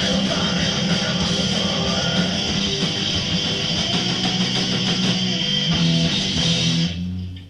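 Live punk rock band playing, led by loud distorted electric guitar over bass and drums. The song stops abruptly near the end, leaving a low note ringing briefly.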